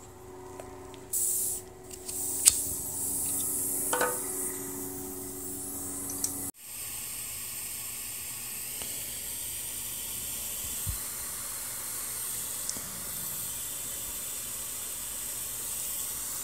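A few faint clicks and brief rustles of small parts being handled, then, after an abrupt cut, a steady even hiss.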